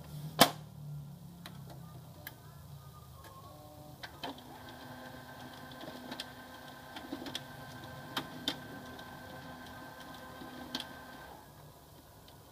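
Top cover of an HP LaserJet CP1025 colour laser printer snapping shut with one sharp click. About four seconds later the printer's mechanism starts a steady run, a hum with a higher whine and scattered clicks, and stops about eleven seconds in, the start-up cycle of a printer that is showing a toner cartridge error.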